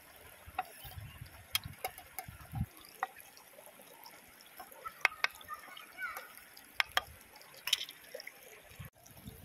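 Kitchen knife scraping and tapping on a wooden cutting board as chopped green chilies and sliced shallots are pushed off into a wooden bowl, giving scattered sharp clicks. Under it, the steady trickle of a shallow rocky stream.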